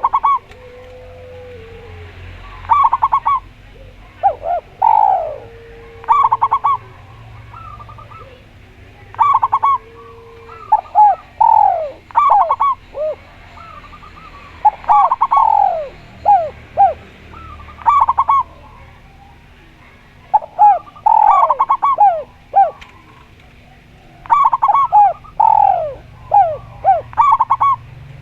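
A spotted dove (tekukur) and a zebra dove (perkutut) cooing. The loudest sound is bouts of quick, falling cooing notes that come every two or three seconds. In the first half there are also a few longer, steady, lower coos.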